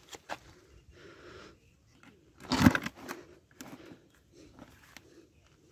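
Hands stirring and squeezing damp method-feeder groundbait in a bucket: a soft gritty crunching and rustling with small clicks, and one loud thump about two and a half seconds in.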